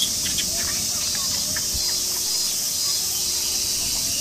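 Steady high-pitched drone of insects in the background, with a few faint short calls over it.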